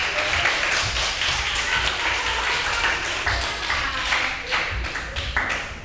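Group clapping: many quick claps blending into a steady patter that fades near the end.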